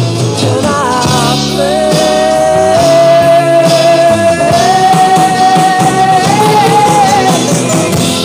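Slow rock ballad playing, with a long note held with vibrato over the band from about a second and a half in until near the end, stepping up in pitch midway.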